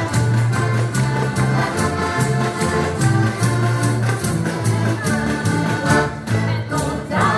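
Several heligonkas (diatonic button accordions) playing a lively folk tune live, with a steady alternating bass and held reedy chords. A stick-mounted jingle drum keeps the beat.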